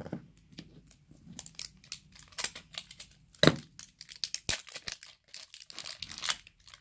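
Small plastic packet of toy play sand being crinkled and torn open by hand, in irregular crackles, with one sharp click about halfway through.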